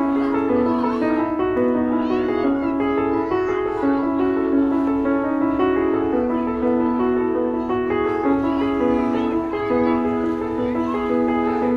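Solo piano music: a steady flow of quick, overlapping notes in the middle register.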